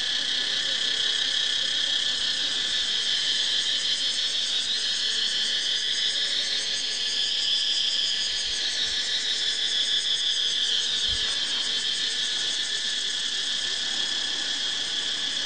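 Steady high-pitched insect chorus, a continuous shrill chirring with a fast fine pulse to it, unbroken throughout.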